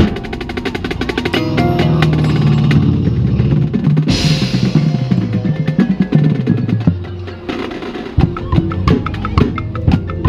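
Marching band playing: sustained chords over drum rolls and hits, with the front-ensemble mallet percussion close by. A cymbal crash comes about four seconds in.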